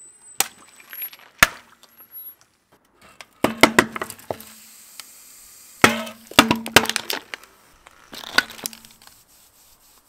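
Things being crushed under a car tyre: a single sharp crack about a second and a half in, then several bouts of crackling, crunching clicks as aluminium drink cans are flattened.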